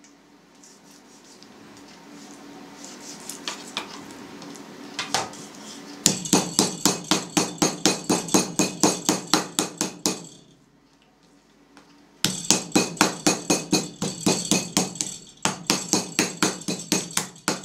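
Wooden meat mallet with a metal textured face pounding raw meat on a plastic cutting board, in quick runs of about five blows a second, tenderizing the meat by breaking up its fibres. The pounding starts about six seconds in, pauses for about two seconds, then resumes.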